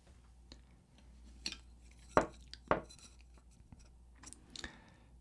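Wooden chopsticks being picked up and handled at the table, making a handful of light, separate clicks.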